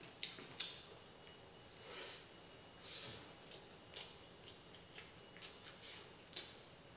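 Faint soft ticks and rustles of fingers pressing and gathering rice on a banana leaf, with two breaths through the nose about two and three seconds in.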